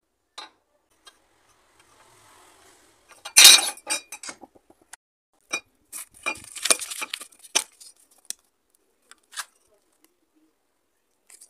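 Handling noises on a wooden tabletop: a round tube and a steel square are set down and shifted with sharp clicks and knocks, loudest about three and a half seconds in. Then a sheet of paper is wrapped around the tube and rustles with small clicks.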